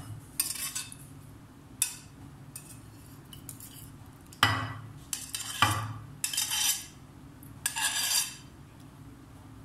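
A metal knife scraping and knocking against a plate as pieces of set jelly are cut and pushed off it, in several separate short strokes with pauses between.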